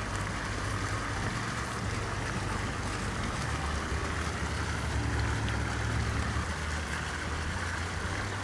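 Steady outdoor background noise: a low rumble under an even hiss, with no distinct events.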